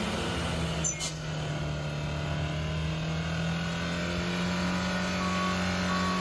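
Isuzu Panther's diesel engine in runaway, screaming at a fixed, unchanging high pitch while it pours out white smoke. A short repeating beep comes in near the end.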